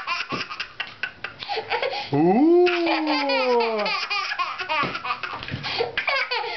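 Toddler laughing hard in quick bursts, with a long laughing squeal about two seconds in that rises and then slowly falls in pitch.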